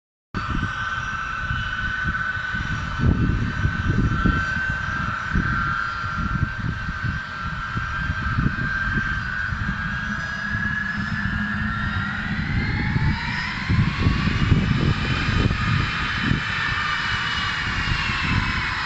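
Airplane engines whining steadily over an uneven low rumble. About twelve seconds in, the whine rises in pitch, then levels off a few seconds later.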